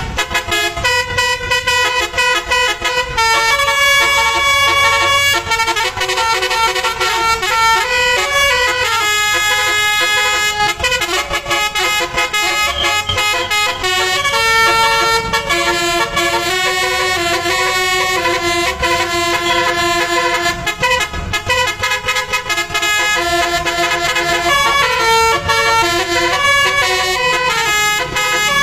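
Bus telolet horn, a basuri multi-tone horn, playing a melody: several held notes sound together and step from pitch to pitch.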